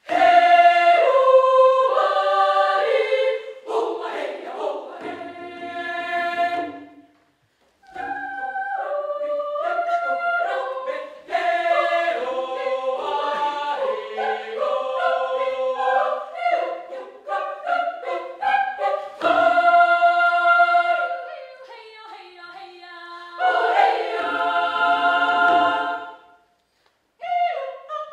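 Children's choir singing a cappella, coming in sharply out of silence and moving in phrases, with short breaks about seven seconds in and near the end.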